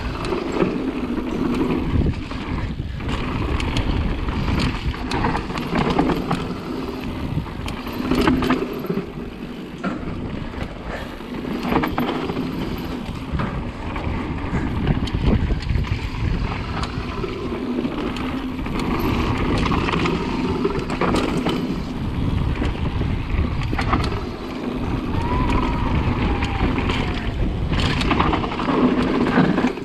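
Mountain bike riding fast down a dirt forest trail: a steady rumble of wind on the microphone and tyres on dirt, broken by frequent sharp knocks and rattles from the bike over roots and stones.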